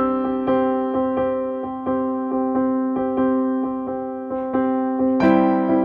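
Background piano music: gentle repeated chords with notes struck about twice a second, a fuller chord coming in near the end.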